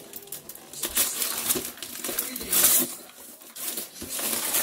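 Wrapping paper tearing and crinkling as it is ripped off a gift box, in several rough rips, the loudest a little past halfway through.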